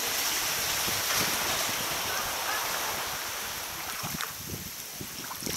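Steady hiss of wind and sea water moving around a sea kayak's hull.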